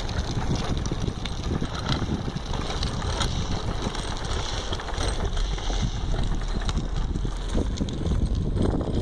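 Steady rumble of wind buffeting the microphone and the wheels of a drift trike rolling downhill on a paved road, with a few scattered knocks.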